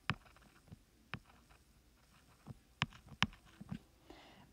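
Stylus tip tapping on a tablet's glass screen during handwriting: a few faint, sharp taps spread out, the two loudest about half a second apart near three seconds in.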